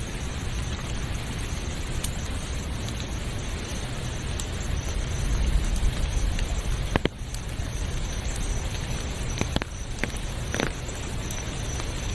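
Steady rain falling: a dense, even hiss with a low rumble underneath and a few sharp drop clicks scattered through it.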